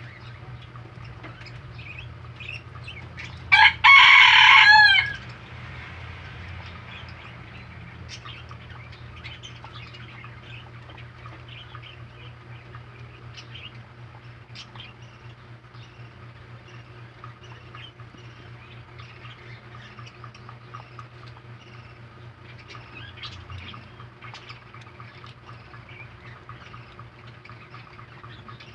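Baby rabbits chewing fresh vegetables: a steady run of small crunching clicks over a low hum. About three and a half seconds in, a loud animal call rings out once for about a second and a half.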